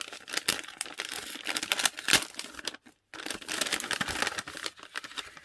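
Purple paper gift bag crinkling and rustling as it is opened by hand, in two bouts with a brief pause about three seconds in.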